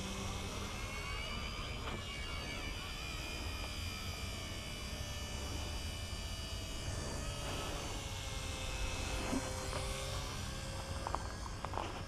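Small electric radio-controlled helicopter, a WLtoys V931, in flight: a high buzzing whine from its motor and rotors that drifts up and down in pitch, over a low rumble.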